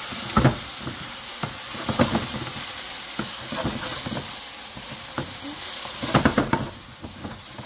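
Broccoli and carrot slices sizzling in a hot frying pan while a wooden spatula stirs and tosses them. The spatula scrapes and knocks against the pan, with a quick run of louder knocks about six seconds in.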